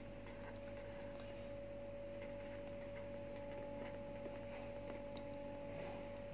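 Ballpoint pen writing on lined notebook paper: faint, irregular scratching strokes, over a steady low hum.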